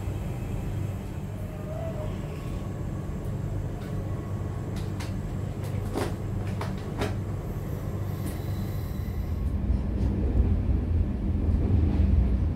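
Steady low rumble of a passenger train heard from inside its dining car, with a few sharp clicks about halfway through. The rumble grows louder over the last few seconds.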